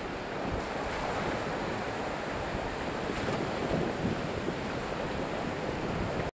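Ocean surf breaking and washing up the beach in a steady rush, with wind buffeting the microphone. The sound cuts off abruptly just before the end.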